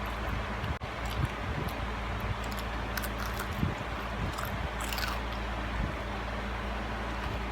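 Crispy fried chicken being bitten and chewed, heard as scattered short crunches over a steady low hum.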